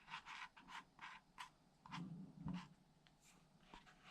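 Faint scratching and rubbing strokes from hand work on a small surface, quick and irregular in the first second and a half. A soft low sound follows about two seconds in.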